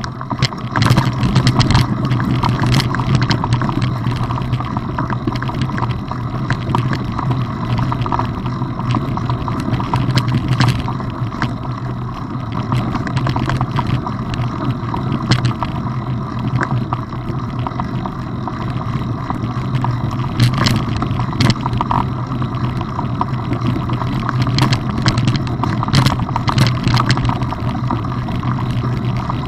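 Mountain bike riding over a dirt and gravel track, heard through a camera riding along: a steady rumble with frequent rattles and knocks from the bumps.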